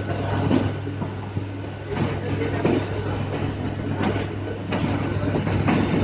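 Suburban local train running, heard from on board: a steady low hum and rumble from the moving coach, with irregular clicks and knocks as the wheels cross rail joints and points.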